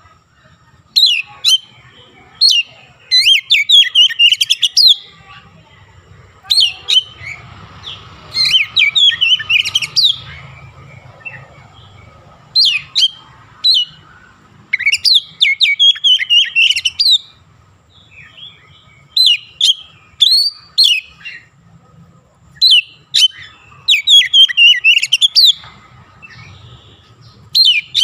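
Oriental magpie-robin (kacer) singing hard in loud, fast phrases of sliding whistles and chatter, about ten bursts of one to two seconds each with short pauses between them. Its song is stocked with mimicked Javan myna (jalak kebo) calls.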